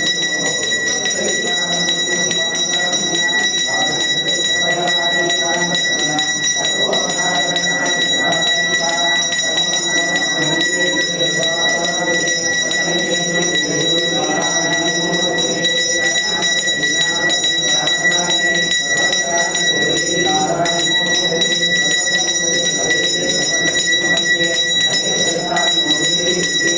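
Brass puja hand bell (ghanta) rung continuously with quick clapper strokes, a steady ringing tone, sounding as the lamp is waved in worship. Voices chant underneath.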